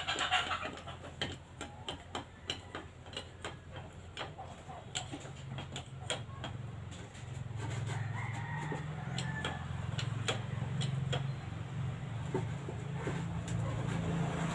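Irregular metallic clicks and taps of hand work under the rear of an SUV, with a low steady hum that grows louder about halfway through.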